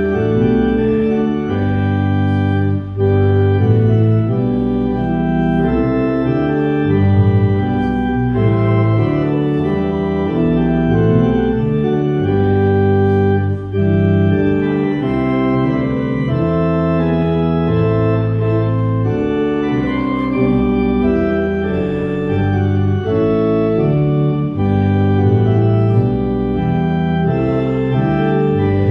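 Church organ playing slow, held chords in a hymn-like progression, with brief breaks between phrases about 3 and 14 seconds in.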